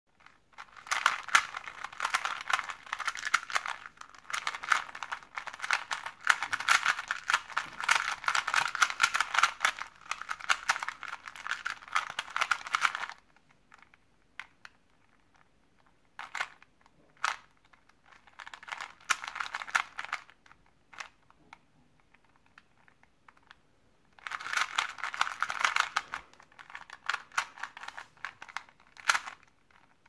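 Plastic clicking and clacking of a 2x2 Rubik's cube being turned quickly. A long run of rapid turns comes first, then pauses broken by single clicks, and two shorter bursts of turning near the end.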